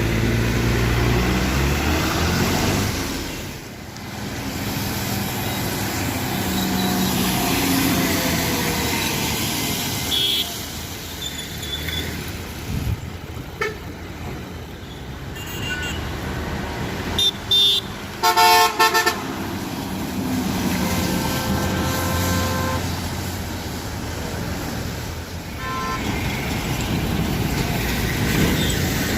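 Road traffic heard from a bus: a steady engine and road rumble, with vehicle horns honking several times, the loudest cluster of short blasts a little past halfway.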